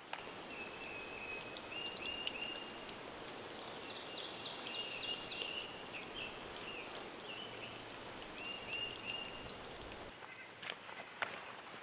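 A songbird singing the same short phrase of hooked, chirping notes over and over, above a steady rush of running water. A few footsteps sound near the end.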